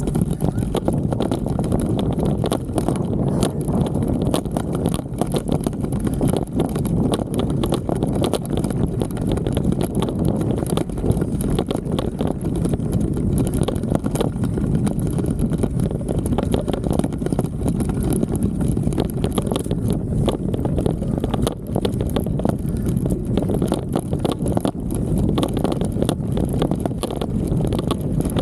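Steady rumble with rapid clicks and knocks from an Insta360 X3 camera shaking in a loose handlebar mount while a mountain bike rides a rough dirt trail.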